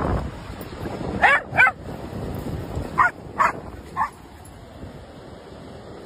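A dog barking in short, high yips: two close together a little over a second in, then three more spaced out between about three and four seconds.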